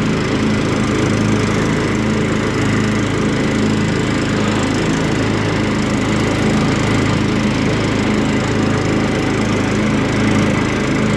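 Kohler Command 15 hp single-cylinder engine of a Poulan Pro riding mower running steadily, with the mower deck engaged and running quietly.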